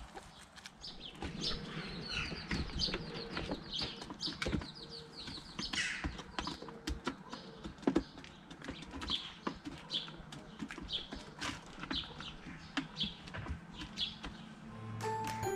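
Backyard hens foraging in long grass, with rustling and some low clucks, under high chirps that repeat about once a second. Music comes in just before the end.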